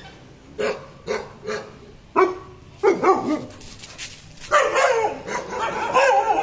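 German shepherd barking aggressively: about six short single barks, then a near-continuous run of barking near the end.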